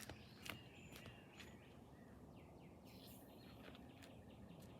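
Near silence: faint outdoor background hiss with scattered small bird chirps.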